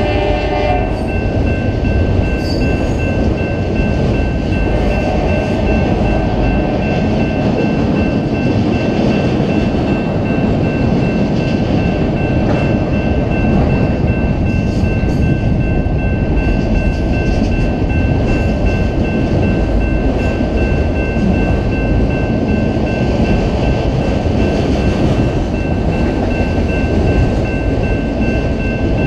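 Freight train cars, autoracks and boxcars, rolling past close by with a loud, steady rumble of wheels on rail and a steady high-pitched tone over it. The locomotive's horn chord cuts off about a second in.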